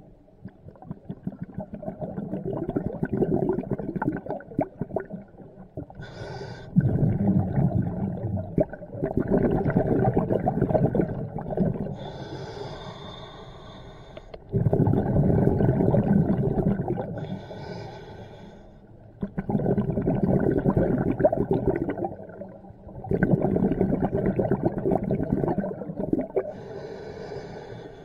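A scuba diver breathing through a regulator underwater: bubbly exhalations rumble for two to three seconds at a time, alternating with shorter, hissing inhalations through the regulator, about five breaths in all.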